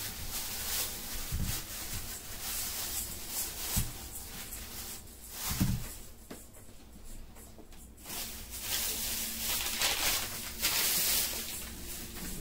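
Plastic grocery bags rustling and crinkling in irregular bursts as produce is handled and set down, with a few soft thumps.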